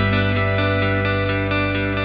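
Background music: guitar playing over a long held bass note.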